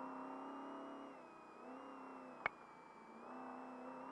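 Trophy truck's engine running under way, heard from inside the cab: it drops back about a second in and picks up again just after three seconds, with one sharp knock about two and a half seconds in.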